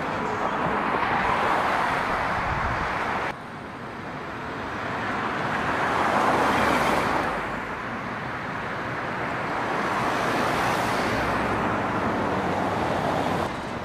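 Road traffic: cars driving by, their tyre and engine noise swelling and fading twice as they pass. The noise drops abruptly about three seconds in.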